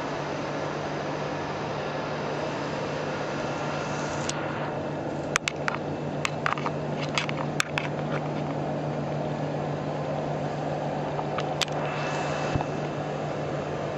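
Steady machinery hum with an even hiss, broken by a quick run of sharp clicks and knocks about five to eight seconds in and a couple more near the end.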